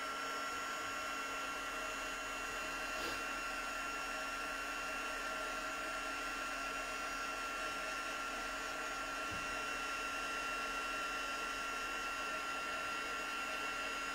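Embossing heat tool running steadily, a blowing hum with a constant high whine, as it melts white embossing powder on cardstock.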